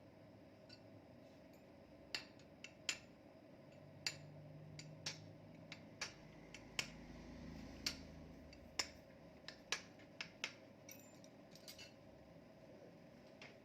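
Sharp metallic clicks and taps, about fifteen at irregular intervals, from hand tools and metal engine parts being handled and fitted during motorcycle engine assembly.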